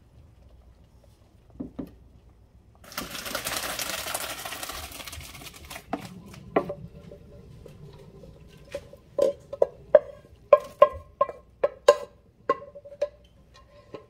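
Pot of pasta water poured into a plastic colander in a stainless steel sink, a rushing splash for about three seconds while the pasta drains. Then a run of about a dozen sharp clanks with a short metallic ring, coming faster near the end.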